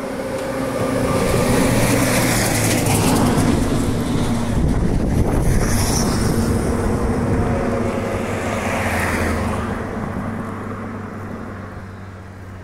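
A lorry driving past on the bridge: engine and tyre noise swell over the first couple of seconds, stay loud for several seconds, then fade away near the end.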